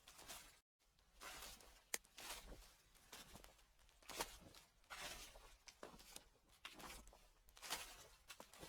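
Footsteps crunching through dry fallen leaves, an irregular step about every second, with a brief cut to silence just under a second in.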